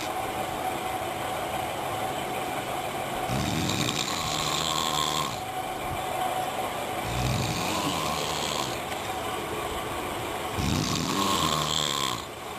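A sleeping person snoring, with a rasping snore about every three and a half seconds, three in all, each lasting under two seconds.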